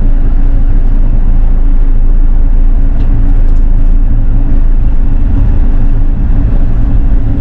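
An engine running steadily at constant speed: a loud, even drone with steady low tones that do not rise or fall.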